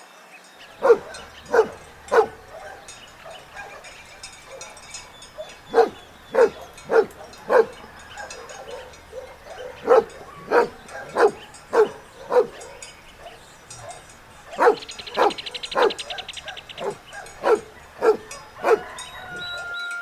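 A dog barking: short single barks about half a second to a second apart, in several runs of three to eight with pauses between them.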